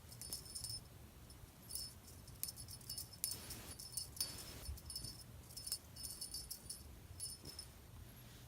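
Small jingle bell shaken in quick, uneven bursts, on and off, with a brief soft rustle twice around the middle.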